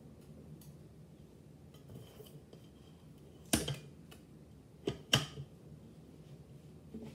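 Hard objects clacking as things are handled and set down on a counter: one sharp clack about three and a half seconds in, then two more close together about five seconds in.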